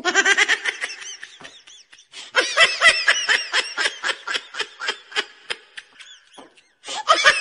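Laughter: a fast string of short, pulsed laughs. It thins out about two seconds in, picks up again, and breaks off briefly near the end before starting once more.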